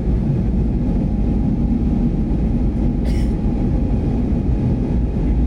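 Steady cabin noise of a jet airliner in its climb after take-off, heard from a window seat by the engine: an even low roar with a faint steady hum over it. About three seconds in, a brief higher hiss.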